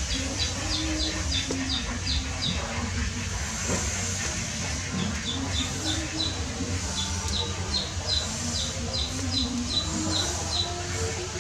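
Bird chirping in runs of short, falling, high chirps, about three a second, repeated in three bursts over a steady background noise.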